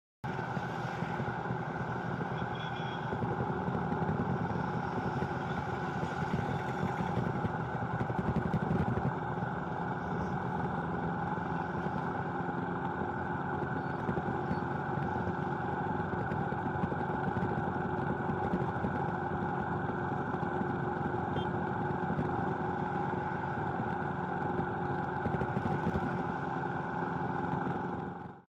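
Steady engine drone and road noise from riding in a moving vehicle through highway traffic, fading out near the end.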